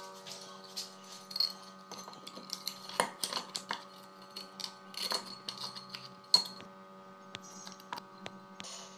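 Light clinks, scrapes and knocks of a clay heater plate with its coiled heating element being handled and seated into a clay electric stove body, its wire leads rattling. A sharper knock comes about six seconds in, over a faint steady hum.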